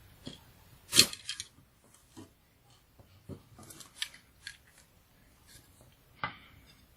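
Irregular sharp clicks and knocks of small plastic parts being handled and pried during the disassembly of a handheld portable fan, the loudest a bit after one second in.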